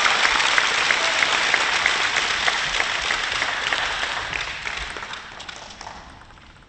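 Audience applauding, with the clapping dying away over about six seconds.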